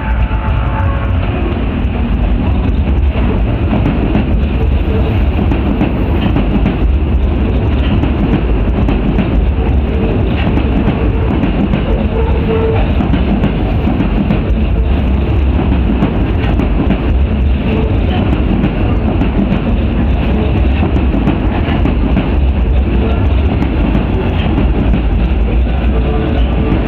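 Osaka Metro Midosuji Line 21 series electric train running in alongside the platform at close range, its wheels and motors rumbling steadily on the rails.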